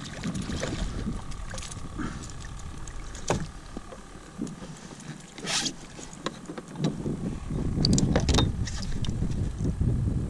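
Scattered knocks and clatter of fishing gear handled on a plastic sit-on kayak, over a steady low rumble of wind on the microphone. A hooked alligator gar splashes at the surface beside the kayak near the start.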